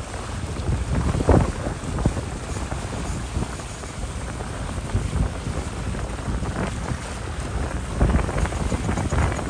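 Wind buffeting the microphone on a small fishing boat at sea, coming in uneven gusts over a steady low rush of boat and water noise.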